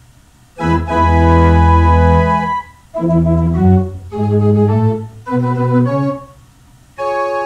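Pipe organ playing slow held chords: a long chord with a strong bass starts about half a second in, followed by three shorter phrases with brief gaps, and a new chord begins near the end.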